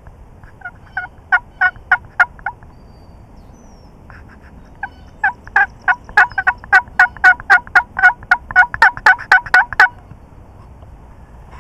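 Two runs of loud turkey yelps. A short run of about eight notes comes first, and a longer run of about eighteen starts about five seconds in, evenly spaced at nearly three a second.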